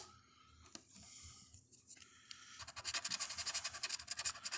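Scratch-off lottery ticket (Ohio Lottery Cash Explosion) being scratched. Light rubbing at first, then about halfway through a fast, continuous scrape starts.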